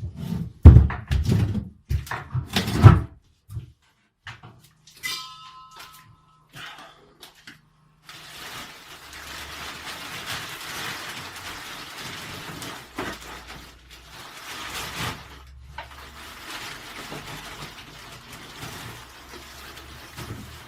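Junk being moved about: several loud knocks and thumps in the first three seconds, a short squeak, then a long steady scraping hiss, briefly broken about two-thirds of the way through.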